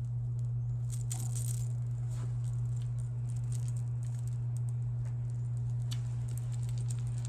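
Small clicks and light rattling of the beads and charms on a stretchy beaded bracelet being handled, over a steady low hum.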